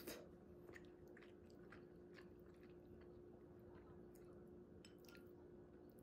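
Quiet eating sounds: a sip from a bowl at the very start, then soft chewing with scattered small clicks, over a faint steady hum.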